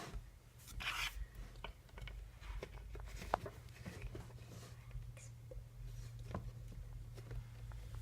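Faint scattered taps, clicks and rubbing from craft supplies being handled, with a short scrape about a second in, over a steady low background hum.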